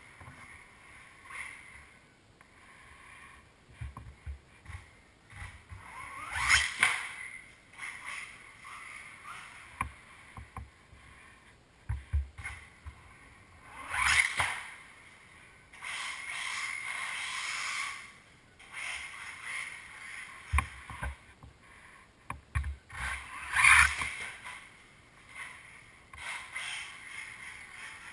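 Losi Mini 8ight radio-controlled buggy's electric motor whining up in several short bursts of throttle, one rising in pitch, with scattered knocks from the car running and bumping over the indoor floor.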